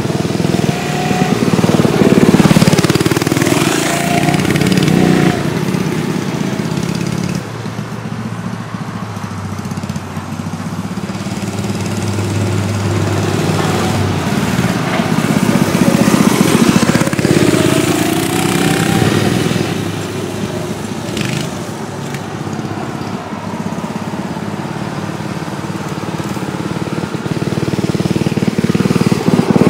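Small single-cylinder mini bike engine running under way, its pitch and loudness rising and falling as the throttle is opened and eased off several times.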